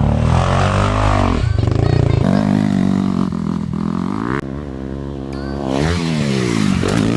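Motocross dirt bike engine revving as it rides, its pitch rising and falling again and again with throttle and gear changes.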